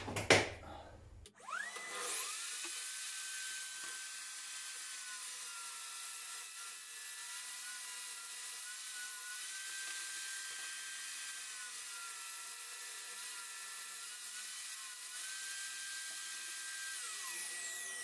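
Benchtop table saw ripping 15 mm multiplex plywood: the motor spins up with a rising whine, runs steadily, and dips slightly in pitch several times as the board is pushed through the blade, then is switched off and winds down near the end.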